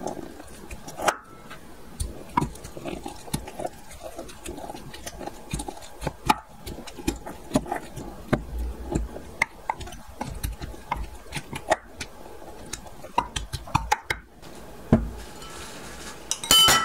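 Wooden muddler pounding and grinding lemon wedges and mint leaves in a ceramic bowl: irregular knocks of wood on ceramic, two or three a second, with squelching of the fruit. Near the end comes a louder cluster of sharp clinks with a brief ringing.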